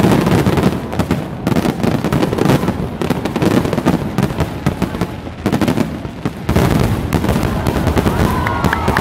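Dense fireworks barrage: aerial shells and ground-level mines going off in rapid, near-continuous succession, a constant run of bangs and crackle.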